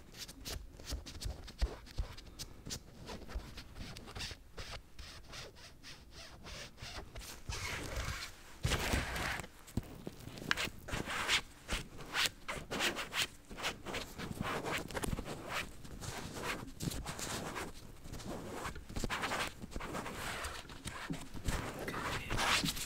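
Close-miked hand-made ASMR sounds: irregular taps and clicks mixed with scratchy rubbing, the rubbing heaviest about a third of the way in and again around halfway.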